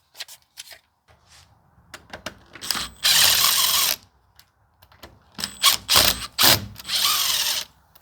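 A power drill/driver run in two bursts of about a second each, with scattered clicks and rattles of hardware between them.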